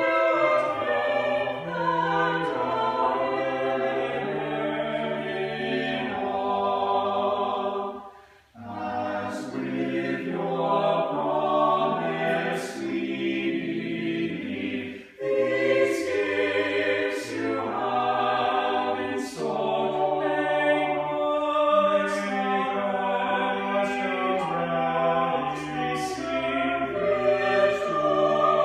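Choir singing in parts, held chords phrase by phrase, with a brief pause between phrases about eight seconds in and a shorter breath about fifteen seconds in.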